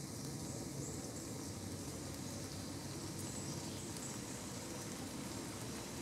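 Woodland ambience: a steady low rumble in the background, with a few faint, short high-pitched chirps scattered through it, typical of small birds calling in the trees.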